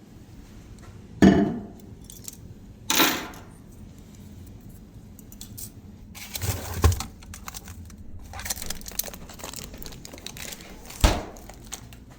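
Lunch being handled and unpacked: a few sharp clinks and knocks as dishes or food containers are picked up and set down, with small clicks and rustling of packaging in between.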